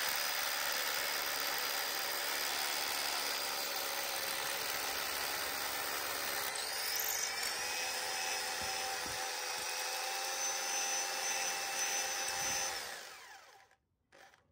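SDS drill running steadily as it bores a fixing hole in a wall, then winding down and stopping about thirteen seconds in.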